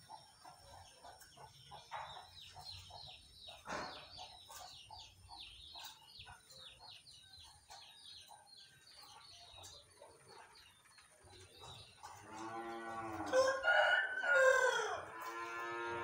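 A rooster crowing once near the end, a long loud call that rises and then falls. Before it, small birds chirp in quick, faint notes, and there is a single knock about four seconds in.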